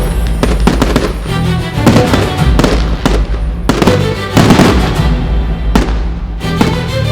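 Fireworks bursting in quick succession, many sharp bangs close together, over loud music with a heavy bass.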